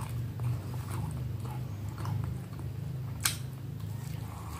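A person chewing a mouthful of food close to the microphone, with soft wet mouth clicks and one sharper click a little past the middle.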